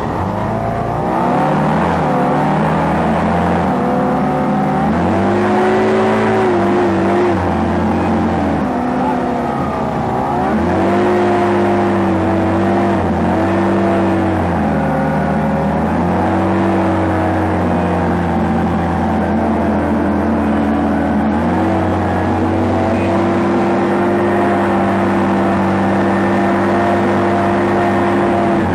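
Hovercraft engine running, its pitch rising and falling several times with the throttle, then holding a steady note for the last several seconds.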